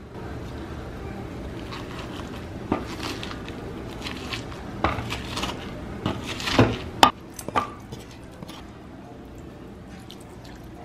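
Wooden pestle pounding and crushing chopped red onion, chili, garlic and peppercorns in a wooden mortar: irregular dull knocks with wet crunching, loudest about two-thirds of the way through, with one sharp click just after.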